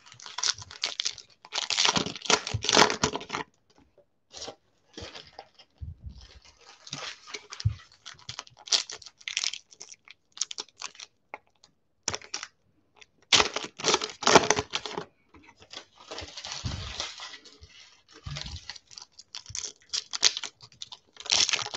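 Foil wrappers of Panini Legacy football card packs being torn open and crinkled by hand, in irregular rustling bursts with short pauses between packs. There are a few soft knocks as cards are set down on a stack.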